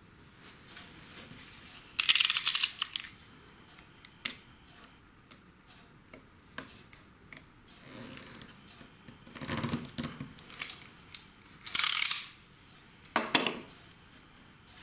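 Cutter knife working on a small plastic model fence gate: several short bursts of rapid clicking and scraping, the loudest about two seconds in and another near twelve seconds, with softer taps and scrapes between.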